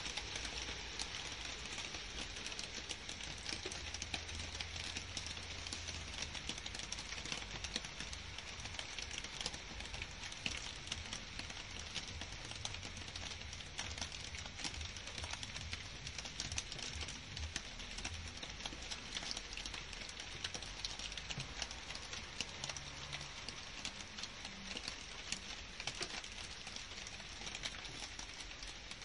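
Steady rain falling on garden foliage and grass, with the taps of many single drops heard close by throughout.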